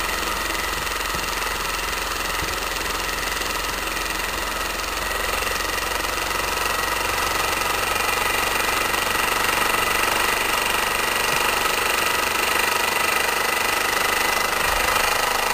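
Small homemade 10cc pressurized rhombic-drive Stirling engine running steadily, turning a small generator, getting slightly louder as it goes.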